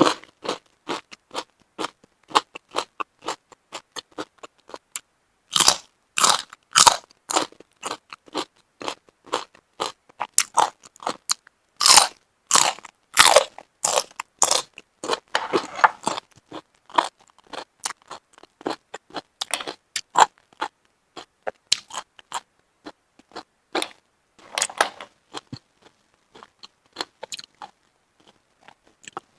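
A person chewing and biting food close to the microphone: a long run of short, sharp, wet mouth sounds, with louder stretches of chewing several times.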